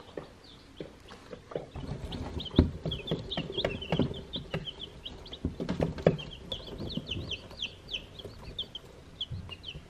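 Baby chicks peeping: many short, high peeps in quick runs, starting about two and a half seconds in. Soft thumps and rustling in chopped straw bedding come with them.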